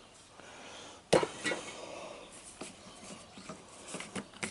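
Metal tool handling as a flywheel puller is worked onto an engine flywheel: one sharp metallic knock about a second in, then light clicks and scrapes of the puller against the flywheel.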